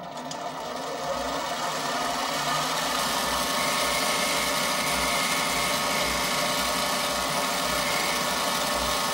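Bench-top mini metal lathe running, its motor and gear whine rising over the first second and then holding steady, while the lathe tool takes a final finishing cut along an ebonite tenon.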